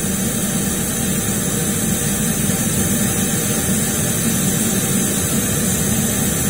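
Steady, even hiss of measurement test noise played through a custom line-array speaker box, its two 10-inch drivers and tweeter running together for a combined frequency-response measurement.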